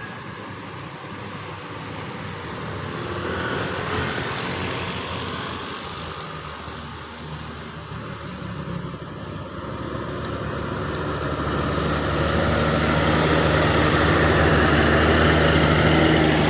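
Road traffic on a mountain bend: a vehicle goes by about four seconds in, then a heavy vehicle's diesel engine comes closer and grows steadily louder toward the end, with road noise and no horn.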